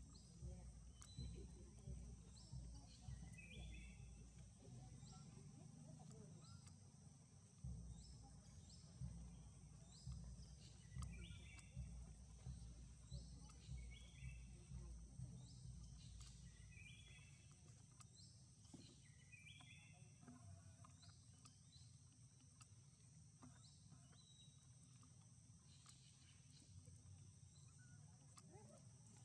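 Faint outdoor ambience: a steady high-pitched insect drone with short high chirping calls repeating every second or two, over a low rumble that fades out about halfway through.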